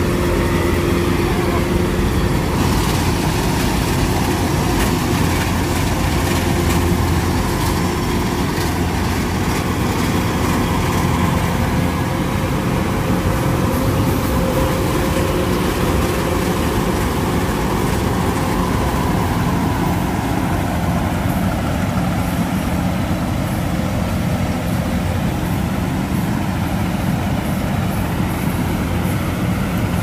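Kubota DC-105X rice combine harvester running steadily while cutting rice, its diesel engine and threshing machinery making a constant loud drone with a steady hum.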